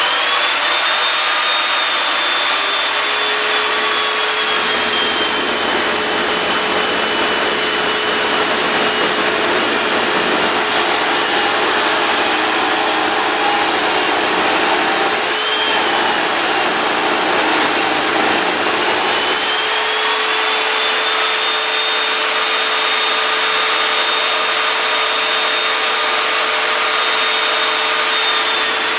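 Evolution Rage 5S power saw starting up and cutting through wood, ripping thin slivers off a board. The motor's whine sags in pitch as the blade takes the load, stays down through most of the cut, and climbs back up about two-thirds of the way through as the load eases.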